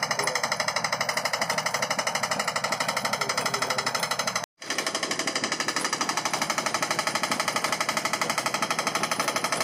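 Electric air compressor's piston pump running and building tank pressure: a loud, rapid, even pulsing, with a brief break about four and a half seconds in.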